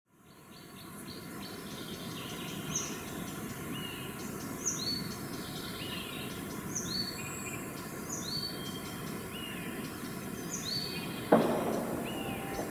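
Small birds chirping and singing, short repeated notes, over a steady outdoor noise haze that fades in at the start. A sudden loud hit comes near the end.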